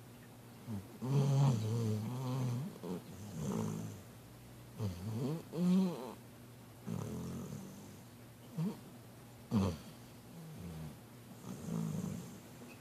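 Sleeping Basset hound mix snoring in irregular bursts, several with a wavering, whine-like pitch, the longest about a second in and a few short sharp ones in the second half.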